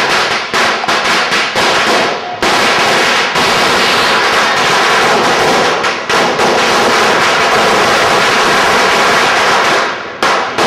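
A string of firecrackers going off. Rapid separate cracks for about two seconds, then the bangs run together into one continuous, very loud crackle that breaks off about ten seconds in, followed by a few more scattered cracks.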